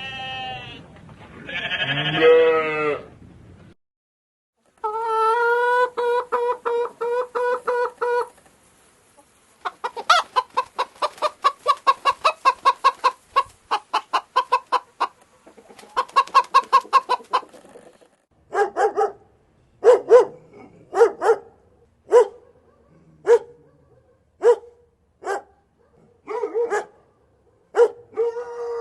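Chickens clucking and calling: runs of rapid, pulsed clucks, then single short clucks about a second apart. In the first few seconds there are two longer, bending calls from another animal, likely the tail of a goat's bleating.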